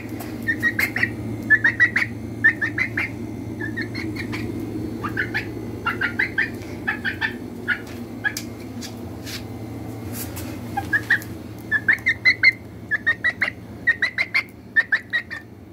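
Chickens peeping: many short, high chirps in quick clusters of several a second, with a lull about two-thirds of the way through, over a steady low hum.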